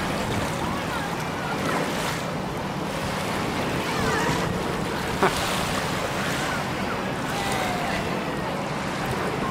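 Steady wind rushing on the microphone over lake water lapping and splashing, with faint distant voices and a single sharp knock about five seconds in.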